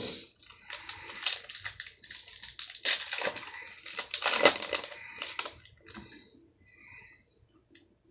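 Foil wrapper of a football card pack crinkling and tearing as it is opened by hand: a run of crackling rustles over the first five or so seconds, loudest about four and a half seconds in, then a few faint clicks as the cards are handled.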